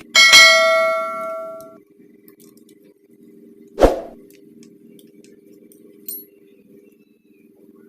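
A metal part is struck and rings with a clear, bell-like tone that dies away over about a second and a half. About four seconds in comes a second, duller metallic knock, all over a steady low hum.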